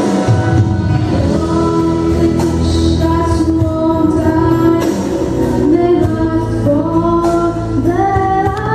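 A boy singing an English-language song into a handheld microphone over instrumental accompaniment, holding long notes, with the melody climbing higher near the end.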